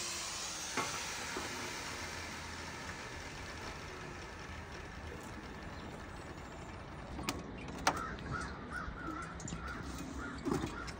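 Angle grinder winding down just after the start, then faint outdoor air. Over the last few seconds crows caw repeatedly, with a couple of sharp clicks just before the calls begin.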